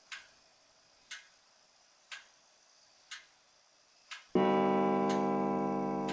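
A clock ticking about once a second, then a single deep chime strike about four seconds in that rings on and slowly fades: the clock beginning to strike midnight.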